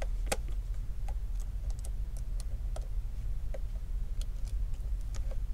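Light, irregular clicks and taps from fingers and a small tool working on the opened phone's internal parts, about a dozen over a few seconds, the sharpest about a third of a second in. A steady low hum sits under them.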